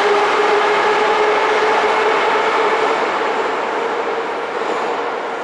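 Metro train pulling out along the far track of the station: a steady rumble with a motor whine, slowly fading from about halfway through as it moves away into the tunnel.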